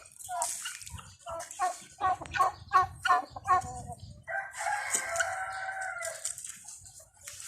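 Farmyard poultry calling: a run of short repeated calls, about three a second, then a rooster crowing once, a long call of about two seconds, from halfway in.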